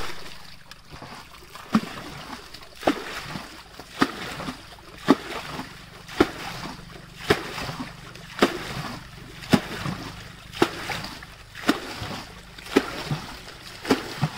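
Muddy water being bailed out of a small pool with a bucket, scooped and thrown in a splash about once a second.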